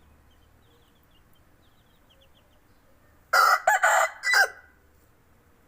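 Aseel rooster giving one short crow of about a second, about three seconds in, broken into a few pulses. Faint high chirps come before it.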